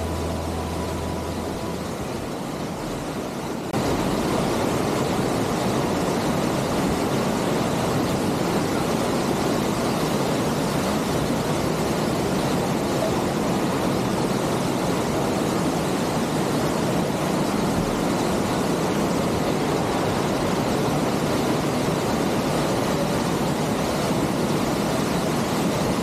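Waterfall cascading through a rocky gorge, a steady rush of water that jumps louder about four seconds in. Background music fades out in the first second or two.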